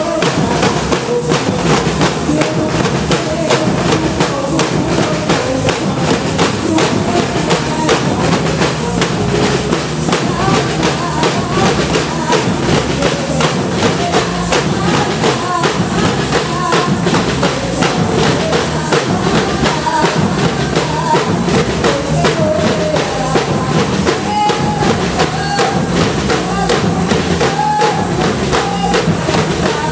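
Church percussion band playing: dense, steady drumming with bass drum and snare-type strikes, and a melody of short pitched notes over it.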